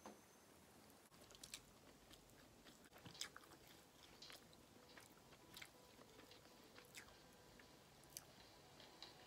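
Faint eating sounds: soft chewing, with scattered light clicks of wooden chopsticks against ceramic dishes.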